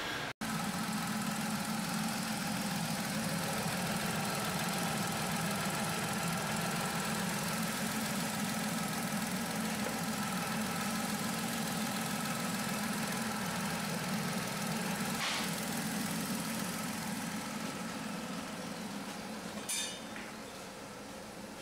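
1-litre three-cylinder Corsa engine idling steadily, with a couple of brief light clicks in the second half.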